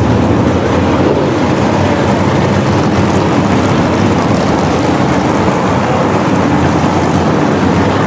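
A field of dirt-track modified race cars' V8 engines running at speed around the oval. It is a loud, steady, dense engine drone with no single car standing out.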